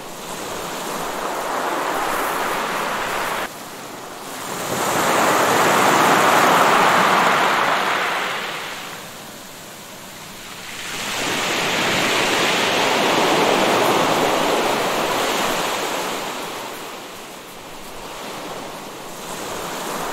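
Sea waves washing onto a shore, swelling and fading in slow surges several seconds long. The sound drops off suddenly a few seconds in, as at a splice, before the two loudest surges.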